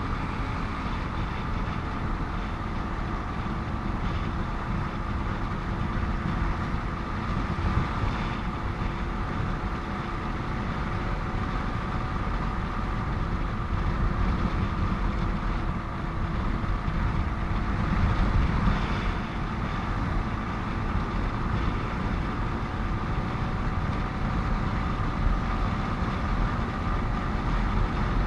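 Steady vehicle and road noise heard while riding a motorcycle along a busy highway: a constant low rumble with a steady engine hum, with no sudden events.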